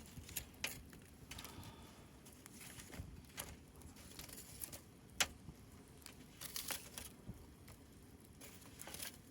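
Scattered sharp clicks and light crinkling, irregularly spaced, with one louder click about five seconds in.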